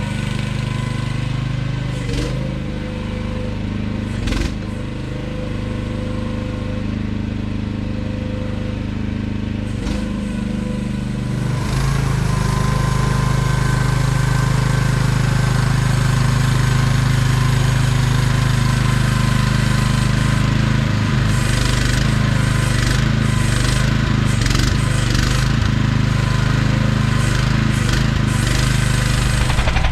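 AGT QH12R mini excavator's engine running steadily, with occasional knocks. About twelve seconds in it runs louder and stays louder, and a series of clunks and knocks comes in the last third.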